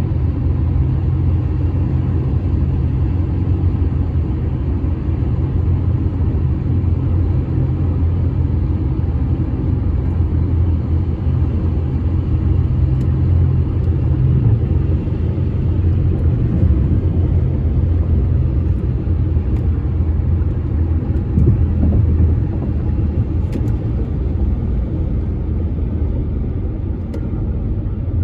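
Steady low rumble of car road noise from a vehicle in motion, holding even throughout, with a few faint clicks near the end.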